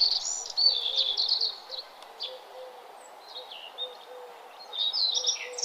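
Small songbirds chirping and twittering in quick high-pitched runs, busiest at the start and again near the end, over a steady background hiss.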